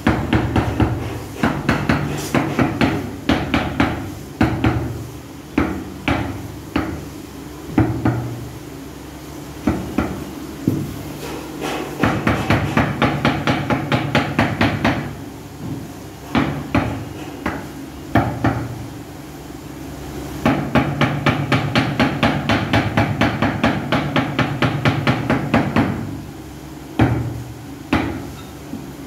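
A hand tool striking ceramic floor tiles as they are laid: scattered single knocks and two long runs of quick, even taps, several a second.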